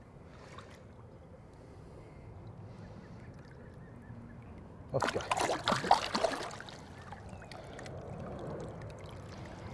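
Water splashing in the shallows as a released carp kicks away from the angler's hands: a short burst of splashing about five seconds in, over faint lapping water.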